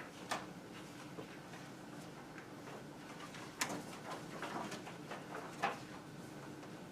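Quiet meeting-room tone with a steady low hum, broken by three short sharp knocks or clicks, the first just after the start, one about three and a half seconds in and one near six seconds, with a few fainter handling noises between.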